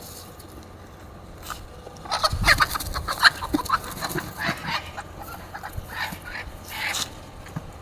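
A chicken squawking and clucking in a rapid, loud flurry of short calls that starts about two seconds in and dies away near the end.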